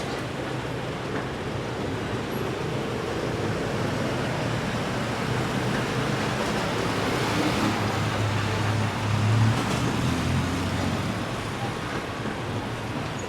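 City road traffic running steadily, with engine hum that builds to a peak about nine seconds in, as a vehicle passes closer, then eases off.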